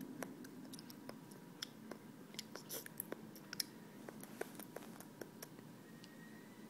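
A toddler chewing chocolate close to the microphone: small, irregular wet mouth clicks and lip smacks, a few sharper than the rest, fading out near the end.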